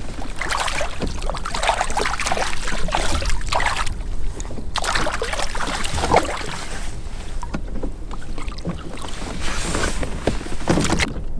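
Wind buffeting the microphone in gusts over a steady low rumble, the rushes of noise coming and going.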